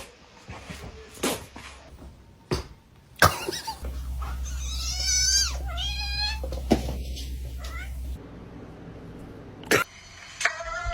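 A cat meowing: two drawn-out, wavering meows in the middle, with a few short knocks around them.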